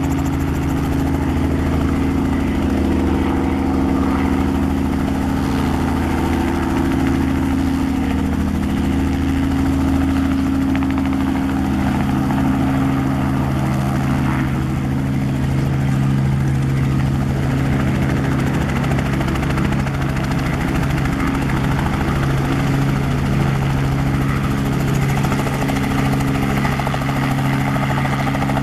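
Robinson R44 helicopter's piston engine and rotor running steadily, from turning on the ground to a low hover-taxi. The engine tones shift about halfway through.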